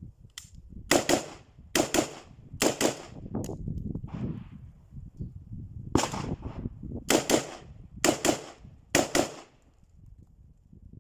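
Kalashnikov AKM rifle (7.62×39 mm) firing about ten shots in two strings, single shots and quick pairs roughly a second apart, with a pause of about two seconds between the strings.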